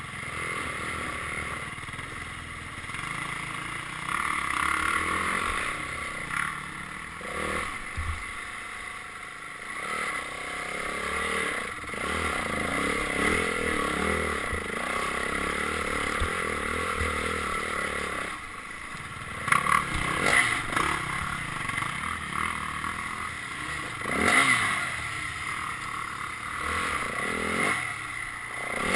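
Dirt bike engine running as the bike is ridden, rising and falling in pitch with the throttle, with a few louder bursts about two-thirds of the way through.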